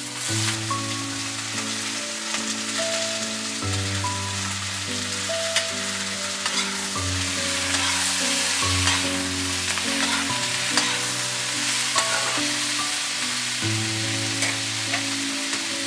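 Vegetables sizzling and crackling as they fry in a pan, with stirring. Soft sustained music chords play underneath.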